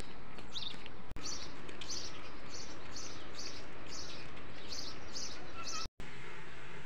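A bird chirping repeatedly, short high chirps about twice a second, over a steady background hiss. The chirps stop a little after five seconds in.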